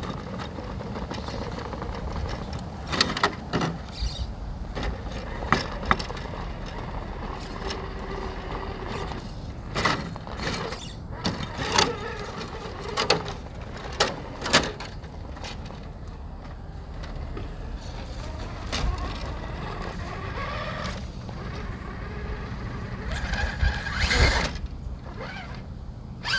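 Axial Unimog 6x6 RC crawler with a Hobbywing Quicrun Fusion brushless motor crawling slowly over rocks. The motor and drivetrain run steadily, with a faint whine at times, and scattered sharp clicks and knocks of tyres and chassis on rock come throughout, loudest near the end.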